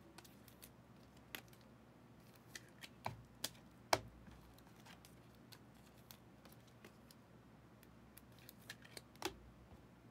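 Sparse, faint clicks and taps of trading cards being handled, with a small cluster of sharper clicks about three to four seconds in and another near the end.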